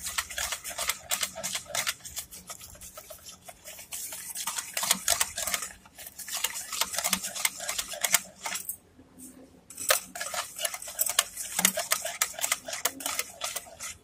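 Wire whisk beating thin, runny batter in a plastic bowl: fast, continuous clicking and scraping of the wires against the bowl, with a short pause about two-thirds of the way through.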